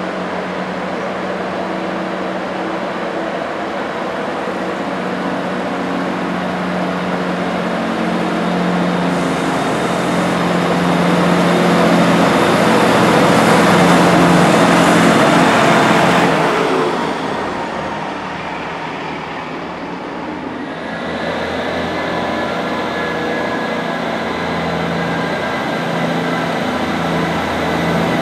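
Diesel multiple unit engines running at a station. One train's engines grow louder as it moves off past, loudest about halfway through, then fade. A Northern Class 158 DMU then comes in with a steady engine note and high whining tones.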